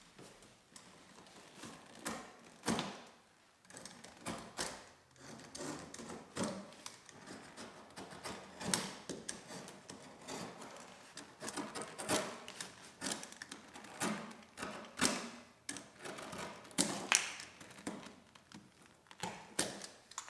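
Knife cutting and shaving along the stiff spruce bark and wood at a bark canoe's stem: a long string of irregular scraping cuts, a few each second.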